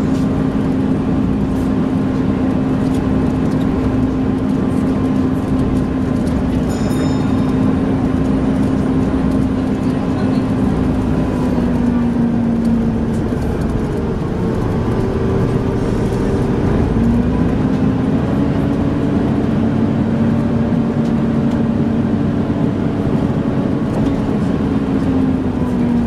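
Volvo B7TL double-decker bus under way, heard from inside: its engine cooling fan gives a steady, vacuum-cleaner-like drone over engine and road noise. About halfway through, the drone sags and fades while other engine tones glide. A few seconds later the drone comes back.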